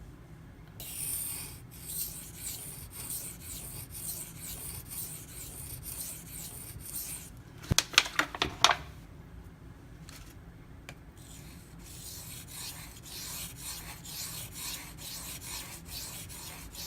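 An M390 steel knife blade being stroked back and forth across a waterstone in freehand sharpening, a rasping rub with each pass. Around eight seconds in, a quick run of sharp clicks is the loudest sound, then the strokes pause for a few seconds and resume.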